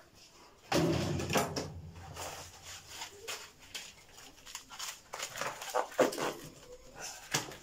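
Handling noises as frozen meat is lifted and set into plastic bowls of thawing water: a sudden bump about a second in, then scattered knocks and rustling of plastic packaging.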